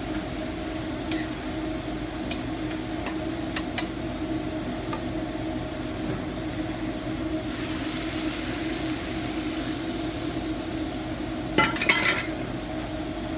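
Metal wok spatula and ladle scraping and clinking against a wok and a metal pan as the sauced chicken is scooped out, with a few single clinks, then a rapid clatter of metal about twelve seconds in. Under it runs a steady hum of a kitchen exhaust hood.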